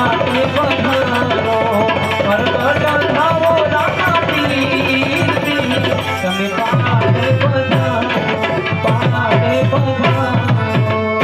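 Harmonium and hand drums playing an instrumental passage of a Gujarati devotional bhajan, the drumming growing denser about halfway through.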